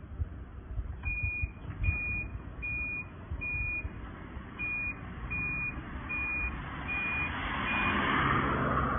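Reversing alarm of a three-wheeled passenger tricycle: a high electronic beep repeating about nine times, roughly once every 0.8 s, over a low steady rumble. Near the end a rising rush of noise becomes the loudest sound.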